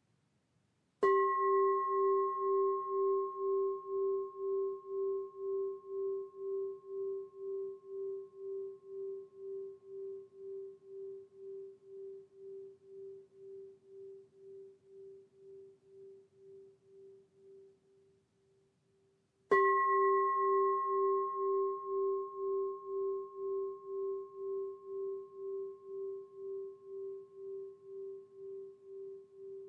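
A singing bowl struck twice, about eighteen seconds apart. Each strike rings out in a low, pulsing hum with fainter higher overtones, fading slowly.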